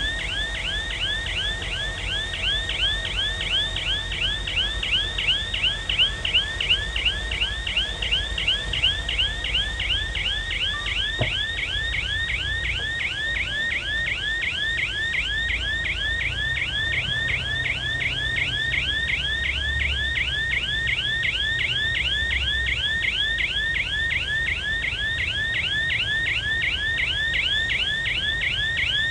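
Heavy earthmoving machine's reversing alarm: a fast, even chirping sweep, about three a second, that never breaks, over the low rumble of a diesel engine. The machine is backing up.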